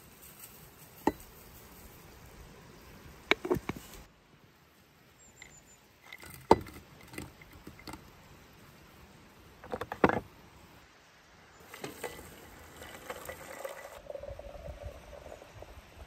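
Sharp clicks and taps of a glass teapot, its lid and a wooden cup being handled on a wooden board as loose black tea and dried red berries are added. Near the end, water pours from a kettle into the glass teapot with a rising pitch as it fills.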